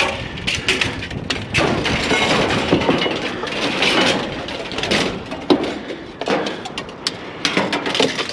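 Metal bicycle frames clanking and rattling as they are handled and set onto a pile of scrap metal, an irregular clatter of knocks with one louder bang about five and a half seconds in.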